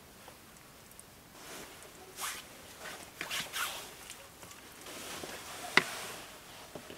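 Flat stone slabs being handled and set into clay mortar: a few short rough scrapes of stone and grit, then a sharp clack of stone against stone near the end.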